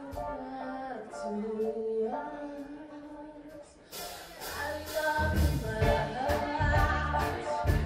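Live rock band with a female lead singer: a quiet passage of held notes, then a sudden crash about four seconds in, after which the drums and bass come in and the full band plays under the singing.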